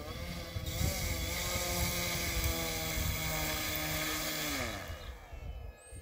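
Brushless electric motor (G46, 670kv) spinning a 12x8 propeller on a Seagull 40 RC model as it taxis on grass: a steady motor whine and prop hum, rising sharply under a second in, then winding down in pitch about four and a half seconds in as the throttle comes back.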